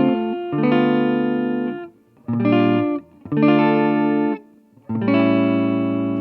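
Guitar playing a slow run of held chords, about five of them, each left to ring and then cut off before the next, in an instrumental passage between sung lines.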